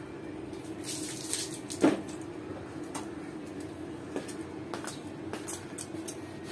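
Metal steamer pot heating on the stove: scattered light ticks and one louder knock about two seconds in, over a steady low hum.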